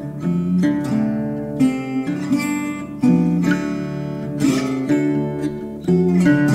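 Background music: an acoustic guitar instrumental of plucked and strummed notes, with a few sliding notes.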